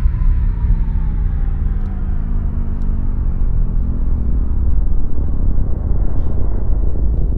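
Deep, steady low rumble, with a faint tone gliding downward in the first few seconds.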